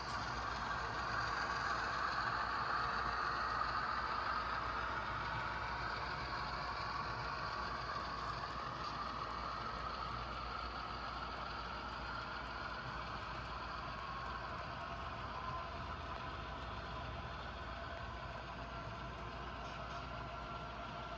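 HO-scale model train running on the layout track, a steady whir whose pitch slowly drops and fades a little over the stretch.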